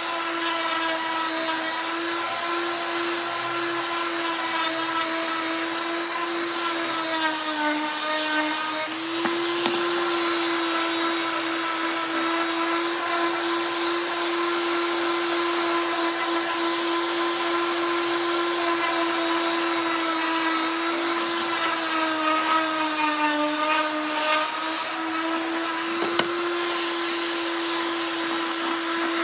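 DeWalt DWE6423 5-inch random orbital sander running with a steady electric-motor whine. Its pitch sags briefly twice, near a third of the way in and again about three-quarters through.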